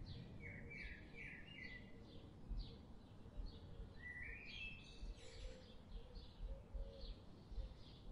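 Faint birdsong: quick chirps repeated a few times a second, with two short runs of stepped, climbing notes, one about half a second in and one about four seconds in, over a low outdoor background rumble.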